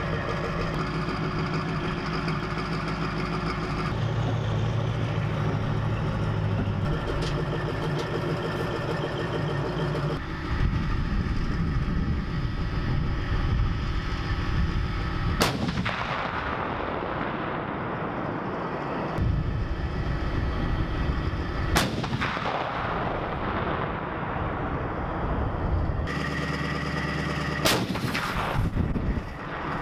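Self-propelled howitzer engines running steadily, then three sharp cannon shots spread over the second half, from 155 mm M109A7 Paladin howitzers firing live rounds.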